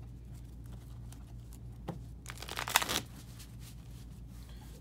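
A deck of sleeved trading cards being shuffled: a single tap, then a quick burst of rapid card flicks lasting under a second, about two and a half seconds in.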